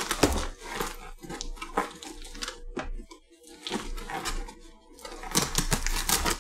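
Fingers picking at and scraping the packing tape on a cardboard box, irregular scratching and rustling with small clicks. It goes nearly quiet for a moment in the middle, then grows louder again near the end.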